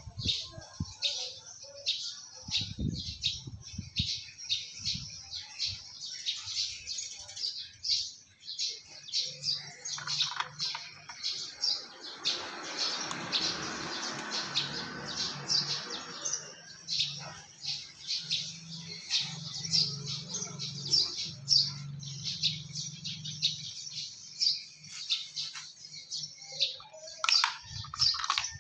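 Small birds chirping over and over, many short high chirps several times a second, with soft clicks and knocks of mussel shells being pried apart close by. A low hum swells and fades through the middle.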